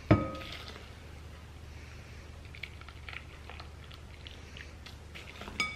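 Boiling water pouring from a kettle into a small plastic measuring cup, a soft trickle with faint ticks. There is a sharp clink with a brief ring just at the start and another near the end.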